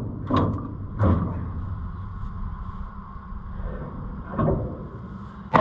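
A new thresher drive belt on an Oliver 7300 combine being levered onto its pulley by turning the drive with a bar: a few short creaking strains, then a sharp snap near the end. The snap is taken for the belt jumping onto the pulley, though it could be the belt tearing.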